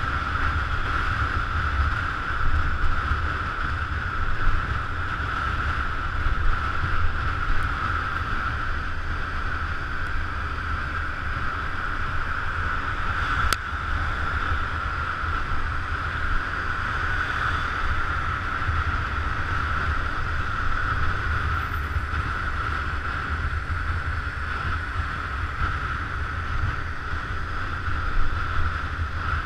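Wind buffeting the microphone while riding a motor scooter at speed, over a steady engine drone with a constant high whine.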